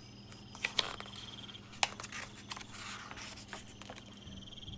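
Quiet night ambience of crickets trilling softly, with a few scattered soft clicks and scrapes over the first three seconds.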